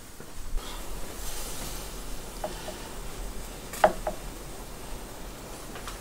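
Metal kebab skewers being set down and shifted on a wooden board: two light knocks, then a sharp clink about four seconds in and a smaller one just after, over a faint hiss.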